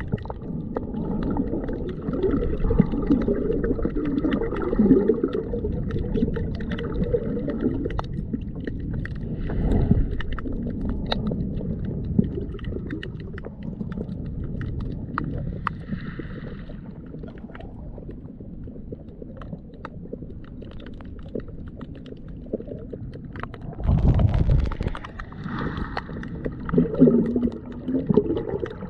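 Muffled underwater sound of moving water, heard with the microphone submerged: an irregular low sloshing rumble with scattered small clicks and crackles, swelling louder a few seconds before the end.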